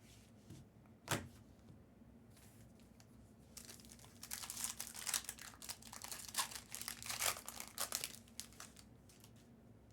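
Plastic wrapping on trading-card boxes or packs being torn open and crinkled by hand. There is a single click about a second in, then a few seconds of dense crackling rustle.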